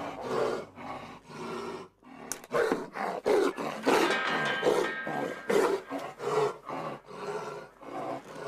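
Young Siberian tiger cub snarling and roaring in a run of short calls, about two a second.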